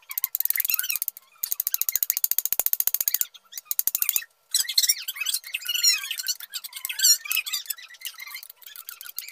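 Hand file scraping a piece of wood in a quick, even run of strokes, then in squeaky, wavering scrapes through the second half.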